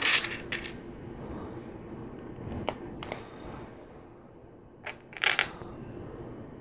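Plastic LEGO Technic parts clicking and clattering as a bent lift arm and friction pins are handled and fitted: several short, sharp clicks, the loudest at the start and about five seconds in.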